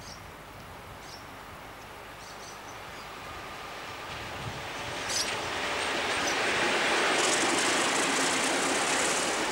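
Australian National diesel locomotives running past on the track. Their noise grows steadily as they approach and is loudest over the last few seconds as the lead unit passes close by.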